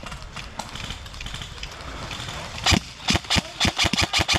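Airsoft gun firing: a single sharp shot nearly three seconds in, then a rapid string of about eight more shots.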